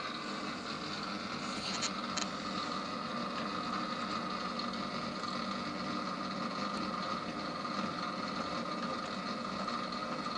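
Panda display automaton's drive mechanism running with a steady whirring hum as it moves its paw and mouth, with a couple of light clicks about two seconds in.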